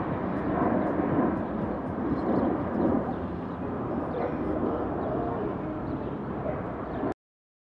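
Outdoor city-park ambience: a steady, dense rumble of background noise that cuts off abruptly about seven seconds in.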